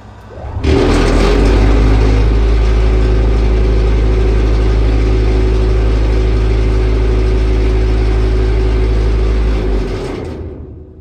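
Volvo dump truck's diesel engine revving up sharply under a second in and held steady at high speed for about nine seconds, then dropping back down near the end.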